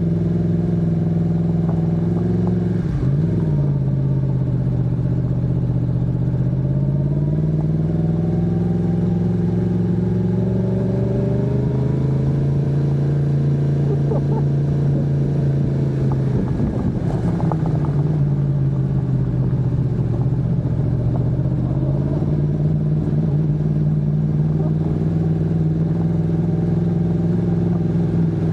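Yamaha MT-10 SP motorcycle's inline-four engine running at low revs on the throttle, its pitch slowly falling and rising several times as the rider eases on and off. A couple of brief rattles come through, a few seconds in and again past the middle.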